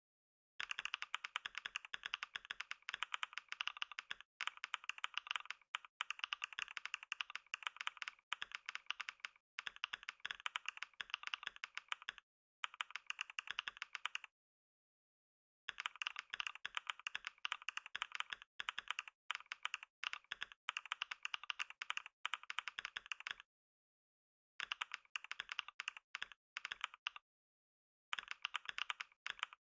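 Computer keyboard typed on at speed: long runs of rapid, dense key clicks, broken by three short stops, the longest about a second and a half.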